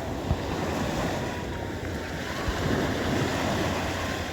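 Black Sea surf washing onto the beach, with wind buffeting the microphone.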